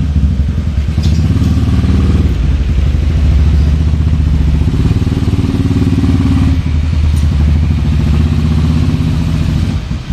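KRY 200 dirt bike's engine idling steadily while the bike is walked along.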